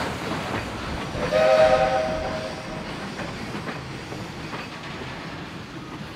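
Steam locomotive whistle blowing one blast of about a second and a half, several notes sounding together, about a second in, over a steady noise from the train that slowly fades.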